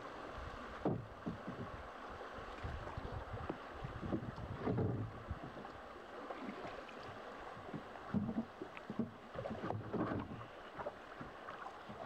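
River water rushing and lapping around the hull of a flat-bottomed wooden toue being poled along, with irregular knocks and splashes from the wooden pole.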